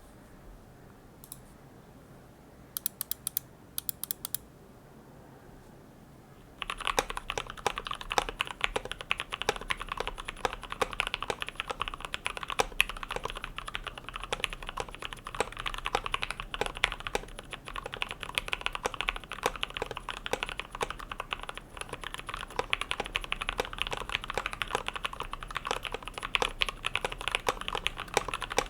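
A few scattered clicks, then fast continuous typing on a KBD75v2 mechanical keyboard from about seven seconds in. It has lubed and filmed Gateron Milky Yellow linear switches, an aluminium plate and PBT keycaps, and each keystroke gives a quick, dense clack.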